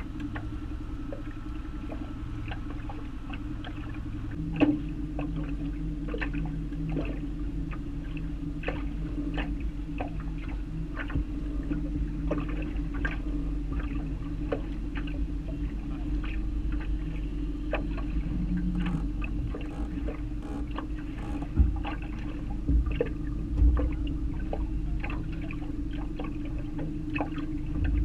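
A boat motor running steadily, with irregular ticks and slaps of river water against the aluminum hull and a few low knocks in the second half.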